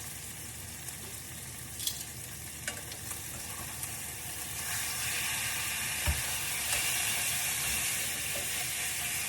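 Food sizzling in a hot frying pan, a steady hiss that grows louder about halfway through, with a few light clicks, likely from a utensil against the pan.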